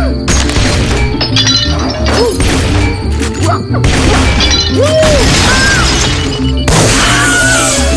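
Cartoon soundtrack: music with a run of loud crashing and smashing sound effects, one burst after another.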